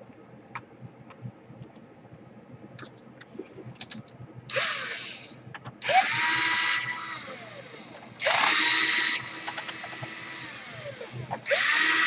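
A small electric screwdriver backs out laptop case screws in four short runs of about a second each. Each run is a motor whine that rises as it spins up and falls as it stops. Light clicks of handling come first.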